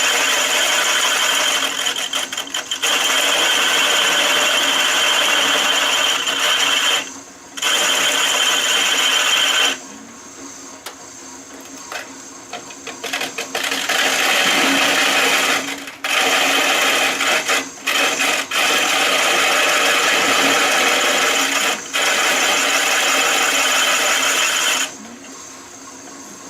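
A turning tool cutting into a large maple burl bowl spinning on a Shopsmith lathe, a loud rough shearing of wood. The cutting stops several times: briefly about seven seconds in, for about four seconds from ten seconds in, and near the end. In those gaps the lathe keeps running more quietly.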